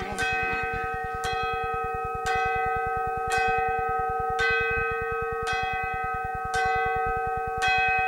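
Clock bell striking midnight: eight strokes about a second apart, each ringing on into the next.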